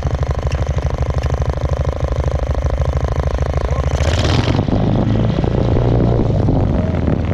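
Two-wheel tractor's small engine running with an even pulsing beat, then picking up speed about four seconds in as the machine drives off, with a short burst of hiss at that moment.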